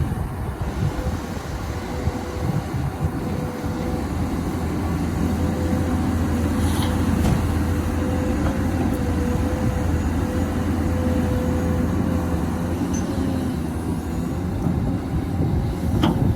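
XCMG XE215C excavator's diesel engine running under working load, with a steady whine from the hydraulics. The load swells and eases as it digs, and a couple of sharp knocks come through, about seven seconds in and again near the end.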